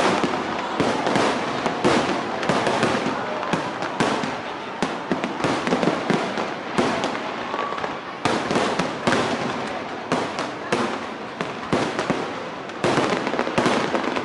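Fireworks display: shells bursting one after another in quick, irregular succession, dozens of bangs with no pause between volleys.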